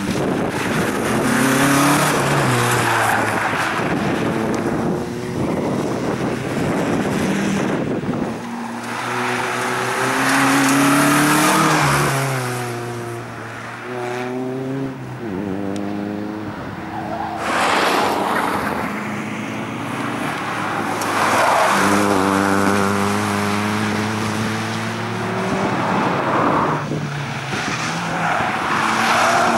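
Nissan Sunny hatchback's engine revving hard and falling back again and again as it is driven fast through the track's turns, its pitch climbing through each gear and dropping at the shifts, with bursts of tyre noise.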